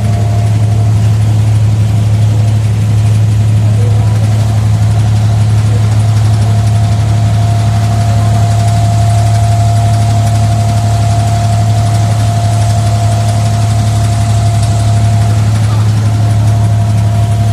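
Abra ferry's diesel engine running steadily close by: a loud, unchanging low drone with a thin steady whine above it.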